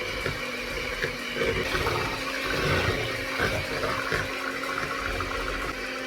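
Electric hand mixer running steadily, its beaters churning through liquid pancake batter with a wet, sloshing whir.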